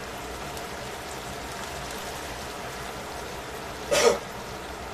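Chicken pieces sizzling in oil in a stainless steel frying pan, a steady hiss, with one brief louder pop about four seconds in.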